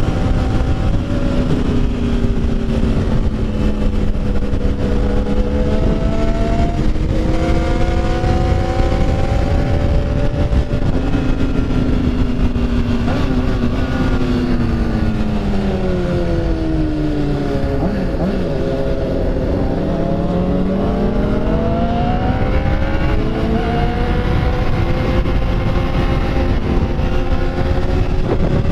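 Motorcycle engine running under way, its pitch falling and rising with the throttle as the rider slows and speeds up, dropping lowest about two-thirds of the way through before climbing again. Wind rumble on the microphone.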